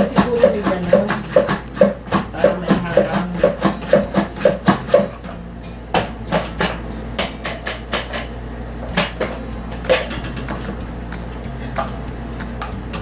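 Hand-pressed plunger vegetable chopper with stainless blades being pumped on garlic: rapid plastic clacks about two a second, then slower, weaker strokes, fading out about ten seconds in. The garlic jams in the blades instead of being chopped.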